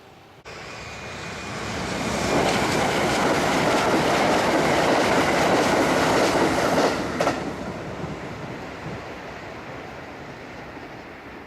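A train passing over a level crossing, its wheels clacking rapidly over the rail joints. It grows loud within about two seconds, holds for some five seconds, then fades as it moves away.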